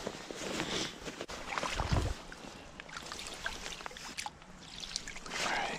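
Splashing and sloshing in shallow creek water, with scattered knocks and a low thump about two seconds in.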